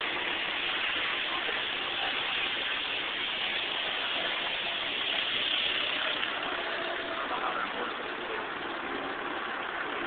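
Busy street ambience: a steady wash of traffic and crowd noise with faint, indistinct voices.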